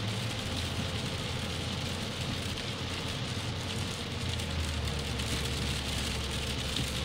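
Heavy rain and tyre spray on a car driving a wet track, heard from inside the cabin as a steady hiss over a low engine drone. The drone grows a little stronger about halfway through.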